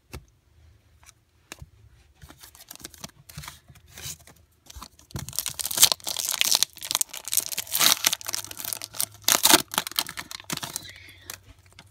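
Foil wrapper of a Topps Fire card pack being torn open and crinkled by hand. Light handling clicks at first, then loud tearing and crinkling from about five seconds in, easing off near the end.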